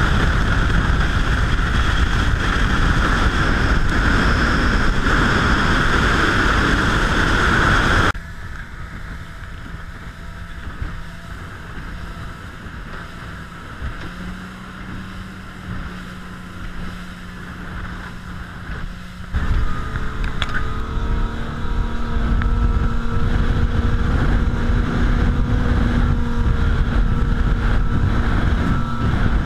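A motorboat under way: wind and water rush past the hull. After a cut comes the engine's quieter low, steady hum at slow speed, and about two-thirds of the way in the engine runs loud at speed, with wind noise.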